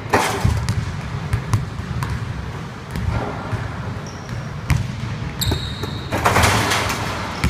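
A basketball being dunked and bouncing in a large gym with a hardwood floor: sharp knocks of the ball on the rim and floor. There is a hard hit right at the start and a louder noisy stretch near the end, at the second dunk.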